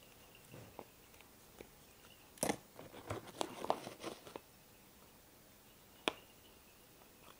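A small metal spoon scraping and scooping crumbly pink oyster mushroom grow-kit substrate and packing it into a hollow cork bark tube. It makes a burst of soft crunching and scraping from about two and a half to four and a half seconds in, with scattered small clicks and one sharper click later on.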